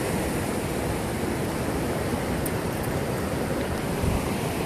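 River rapids rushing over rock: a steady, even rush of water.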